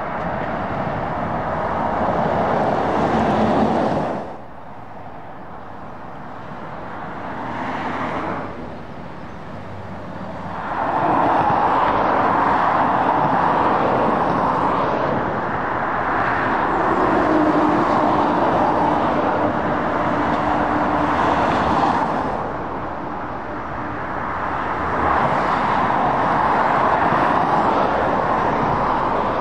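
Road traffic on a dual carriageway, lorries and cars passing one after another, the noise swelling and fading with each. It drops away suddenly about four seconds in and again near eight seconds, and a steady drone sits under the traffic for a few seconds midway.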